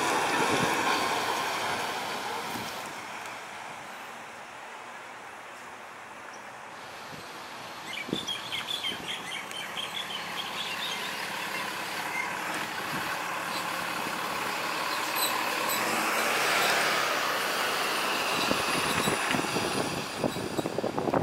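Honolulu Fire Department Engine 6, a 2013 Pierce Arrow XT pumper, drives past and away, its engine noise fading over the first few seconds. Birds chirp about eight seconds in. Vehicle noise then builds again, and a box truck passes close near the end.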